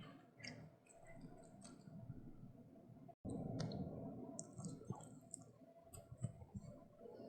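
A small dog chewing a Pepero chocolate-coated biscuit stick: scattered crisp crunches and mouth clicks.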